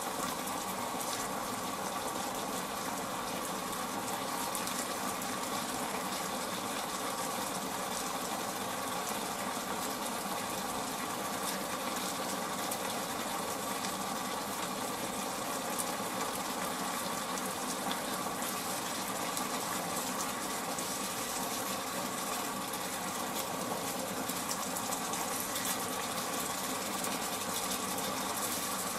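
Pork and onions frying in a pan on an induction hob: a steady sizzle over a constant mechanical hum.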